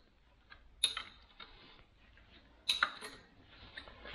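Scattered sharp metallic clicks and taps of hand tools on the bolts of a Unimog 404 clutch pressure plate as it is bolted to the flywheel, with two stronger clicks about a second in and near three seconds and light ticking between.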